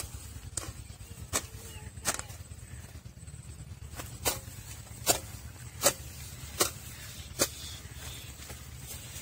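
Hand hoe (kahi) chopping into dry, hard soil in steady strokes, about nine sharp thuds spaced less than a second apart, with a pause of about two seconds partway through. The strikes are raising an earth ridge around a sapling to hold water.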